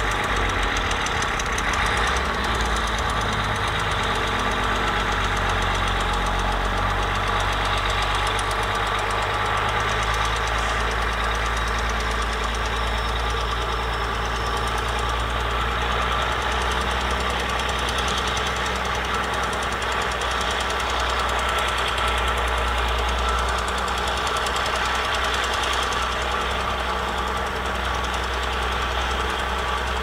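Crawler bulldozer's diesel engine running steadily under load as the blade pushes wet soil.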